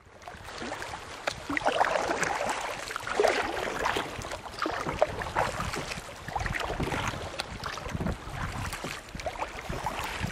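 Kayak paddle strokes on lake water: irregular splashing and dripping as the blades dip and lift, with wind buffeting the microphone.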